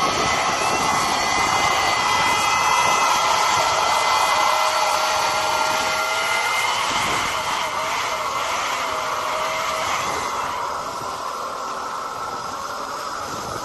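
Rubber chickens fitted over the tailpipes of a Lamborghini Huracán, squealing steadily as the exhaust blows through them, with a few wavering squeals on top. The sound gets quieter for the last few seconds as the car drives off.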